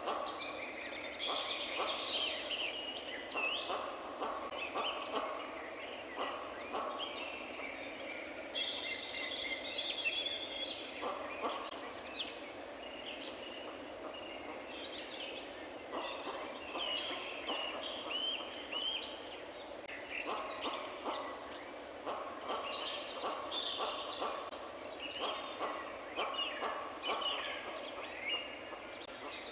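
Several birds calling and chirping over a steady background hiss, with clusters of quick short notes throughout.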